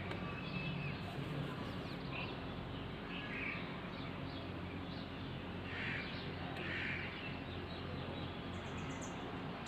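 Birds calling, about five short calls scattered through, over a steady low background noise.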